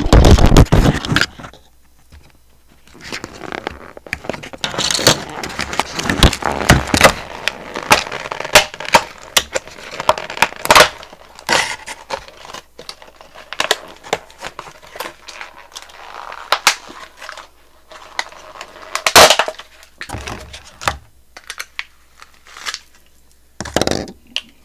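Thin plastic toy packaging being handled and pulled apart: irregular crinkling, crackling and clicking, with a few sharper plastic knocks, loudest about eleven and nineteen seconds in.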